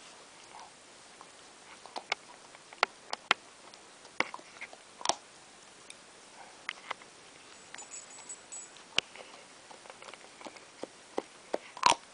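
Rhodesian ridgeback puppy gnawing on a large chew bone: irregular sharp clicks and cracks of teeth on the hard chew, with a loud cluster near the end.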